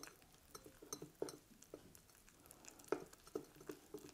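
A utensil stirring pizza-base batter of flour, oil and milk in a ceramic mug: faint, irregular clinks and scrapes against the mug.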